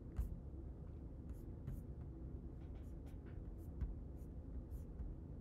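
Scattered soft clicks and taps, a dozen or so at irregular spacing, from someone working a computer, over a faint steady low hum.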